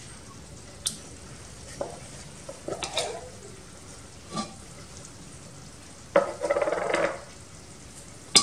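A spatula working wet palm nut pulp in a fine metal mesh strainer: a few light knocks and clicks, then about a second of scratchy scraping against the mesh near the end, closed by a sharp click.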